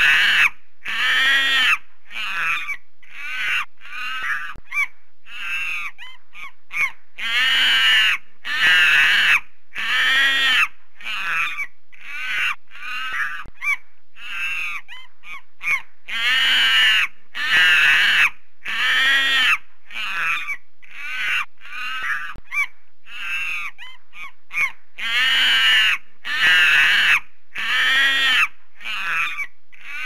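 A primate screaming over and over: harsh, high calls about half a second long. A few long, loud screams are followed by shorter, quicker calls, and the pattern repeats about every nine seconds.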